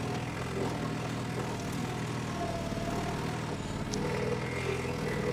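Bobcat 743 skid-steer loader's diesel engine running at steady revs while its stump bucket works at a large stump.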